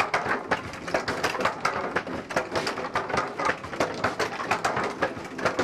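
Wooden pestles of a coffee stamp mill dropping into stone mortars, pounding coffee: a steady run of hard wooden knocks, several a second in an uneven, overlapping rhythm.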